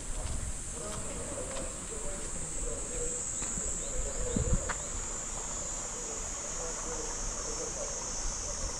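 Steady high-pitched drone of an insect chorus in the trees, such as cicadas, with a few faint clicks.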